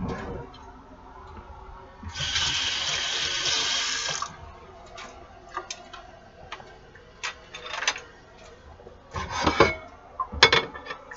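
Kitchen tap running for about two seconds, then scattered light clicks and knocks of dishes and a lid being handled, loudest near the end.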